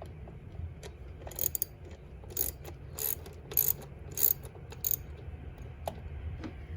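Socket ratchet wrench clicking in short bursts, about six strokes a little over half a second apart, as a bolt is worked loose.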